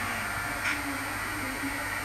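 Model railroad locomotive running slowly on the layout: a steady electric hum and hiss with a faint wavering tone, and a single click about two-thirds of a second in.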